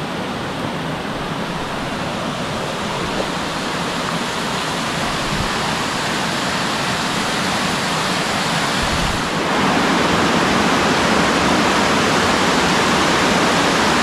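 Waterfall rushing in a steady roar of falling water, growing louder about nine and a half seconds in.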